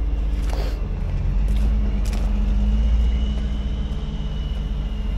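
A heavy truck's diesel engine running steadily, rising in speed about a second and a half in and easing back near the end, with a faint high whine on top in the second half.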